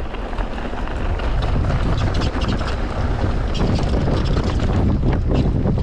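Mountain bike riding down a downhill trail: wind buffets the GoPro's microphone in a loud low rumble, and the tyres and bike rattle and knock over the rough ground. The noise builds over the first second or so as the bike picks up speed, then holds steady.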